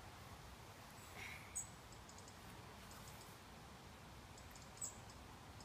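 Near silence: faint outdoor background hiss with two brief, sharp clicks, one about a second and a half in and one near the end, plus a few very faint rapid ticks.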